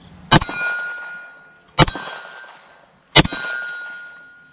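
Three 9mm pistol shots from a Canik TP9 SFX about a second and a half apart, each followed by the fading ring of a small steel silhouette target being hit.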